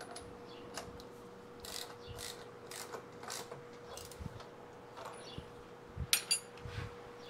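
Small metal tools and parts being handled on an aluminium motorcycle cylinder: a run of light scrapes and clicks, then a sharper metallic clink about six seconds in. A steady faint hum runs underneath.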